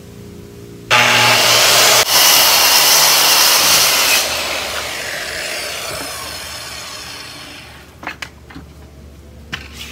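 Corded circular saw starting about a second in and cutting through a sheet of plywood along a clamped straight-edge guide for about three seconds, then the motor winding down over several seconds. A few sharp clicks and knocks near the end.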